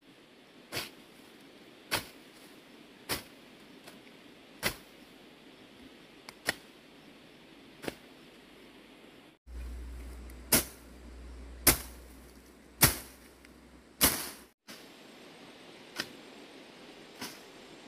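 Grass and weeds being cut by hand with a blade: sharp slashing strokes about once a second. A low rumble runs under the strokes for a few seconds in the middle.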